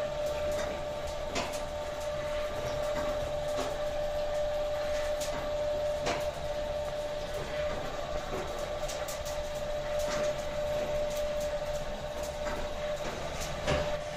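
A steady machine hum at one pitch, from the spit-roasting rig turning whole lambs over the fire, with scattered sharp crackles from the burning wood.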